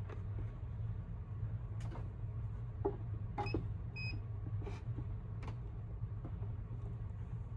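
Hot air rework station being set up: a steady low hum, a few light clicks, and two short high beeps about halfway through as its controls are pressed.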